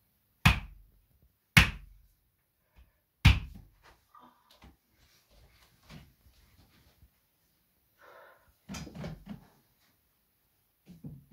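Three sharp, loud blows of a percussive spinal-manipulation technique, a hand striking the patient's back about a second or more apart, used to shift vertebrae back into place. A softer cluster of thumps follows around nine seconds in.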